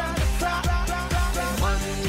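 Music with a steady drum beat, about two beats a second.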